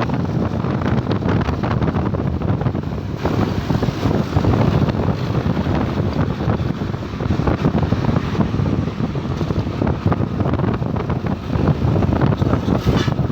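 Loud wind buffeting the microphone over the rumble of roadside traffic.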